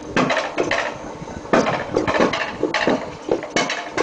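Alpine coaster sled clattering along its metal rails on the lift section: an irregular run of sharp clacks and knocks from the sled and lift mechanism.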